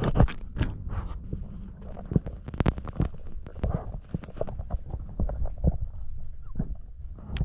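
Muffled underwater sound heard through an action camera while freediving: a steady low rumble of water moving past the camera, with irregular sharp clicks and knocks.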